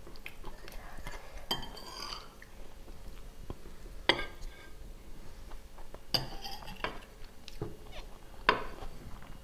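A metal spoon and fork clinking and scraping on a ceramic plate of rice, four sharp ringing clinks about two seconds apart, with mouth sounds of eating between them.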